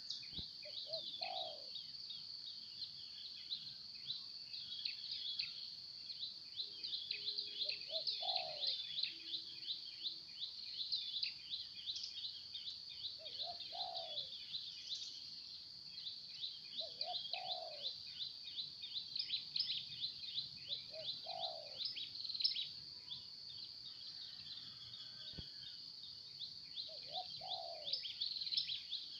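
Spotted dove (tekukur) cooing: a short low coo phrase about every four to six seconds, six times in all, over a steady dense high-pitched chirping chorus.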